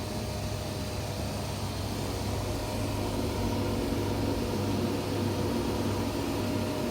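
Esprit CNC plasma cutting table with a Hypertherm MAX200 plasma source running during a test cut: a steady hiss over a low hum, growing slightly louder about three seconds in.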